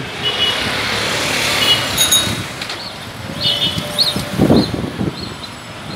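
Busy city street traffic heard from a moving vehicle: a steady rush of engines and road noise, loudest in the first couple of seconds, with a few short high-pitched chirps and rings through the middle.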